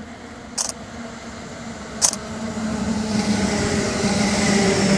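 JR West 223 series and 221 series mixed-formation electric train approaching and drawing alongside, its running noise and motor hum growing louder from about three seconds in. Two short, sharp high-pitched sounds stand out, about half a second and two seconds in.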